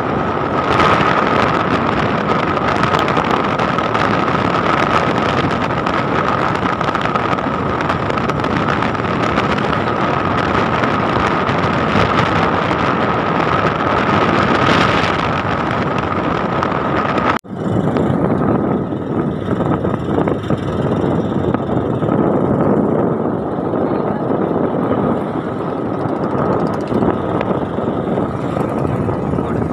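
Wind rushing over the microphone and the running of a motorcycle at road speed, with a steady whine through it. It cuts out for a moment about 17 seconds in, then carries on duller.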